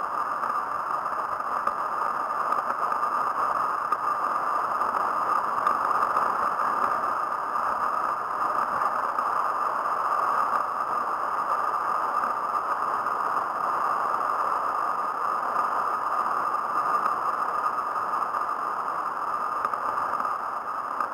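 Steady whirring rush of a handbike rolling at speed on asphalt, heard from a camera mounted on the bike.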